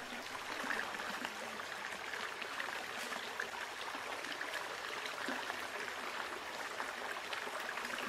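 Steady rush of a stream's flowing water, with faint scattered clicks over it.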